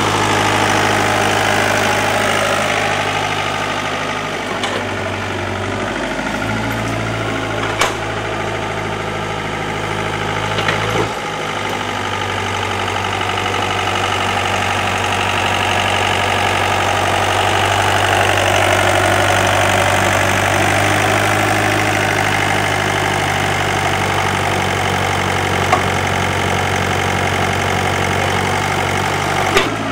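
The diesel engine of a Hyundai 55W wheeled excavator runs steadily as it digs and loads soil. Its note shifts a couple of times, and there are a few sharp knocks.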